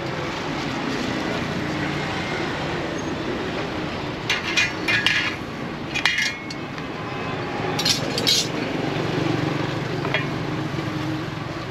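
A cleaver and metal tongs knocking and clinking on a plastic cutting board and stainless steel tray while a roast duck is chopped and handled, in a few clusters of sharp strikes about four, six and eight seconds in, some ringing briefly. Steady street traffic noise runs underneath.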